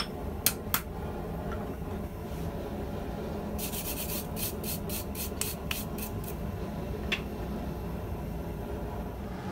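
Two hammer blows on the hot steel bar lying on the anvil, about half a second in. In the middle comes a run of quick, scratchy strokes as the bar is brushed by hand. A steady low rumble runs underneath throughout.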